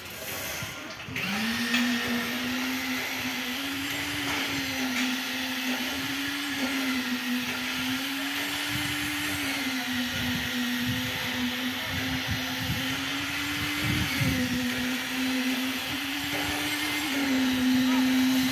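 A motor running at a steady pitch, starting about a second in, its pitch wavering slightly up and down as it goes.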